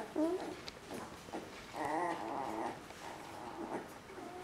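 Three-week-old border collie puppies whining: a short wavering whimper right at the start, then a longer wavering whine about two seconds in.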